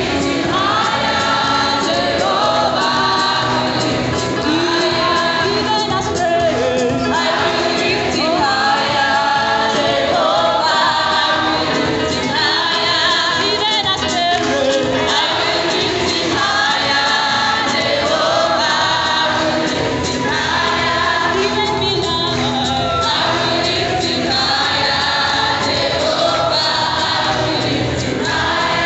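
A large group of voices singing a Christian hymn together in chorus, continuously and loudly.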